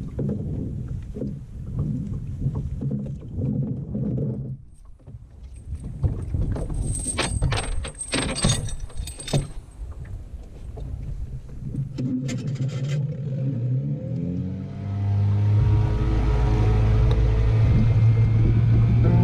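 Small outboard motor on an open boat. Low running sound and metallic clicks and rattles as the motor is handled. About fourteen seconds in, the engine speeds up with a rising pitch and then runs loud and steady as the boat gets under way.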